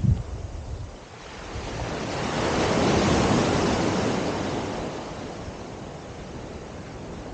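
Ocean surf at the water's edge: a small wave breaks and washes up the sand, rising to its loudest about three seconds in, then easing back to a steady hiss of shallow water. Wind rumbles briefly on the microphone at the very start.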